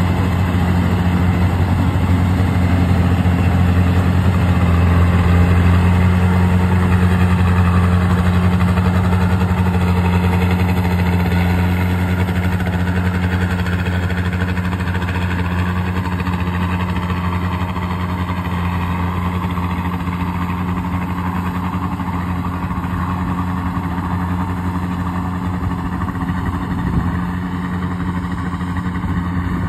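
Yanmar rice combine harvester running steadily as it cuts and threshes, its diesel engine giving a constant deep hum over the machinery's noise. The sound slowly eases over the second half.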